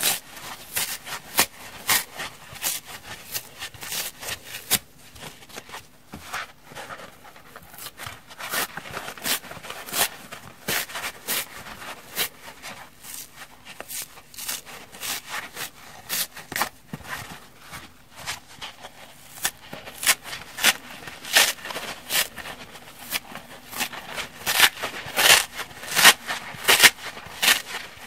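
Scouring-pad layers being ripped by hand off foam kitchen sponges: a run of quick, crackling tears as the abrasive fibres pull away from the foam, louder near the end.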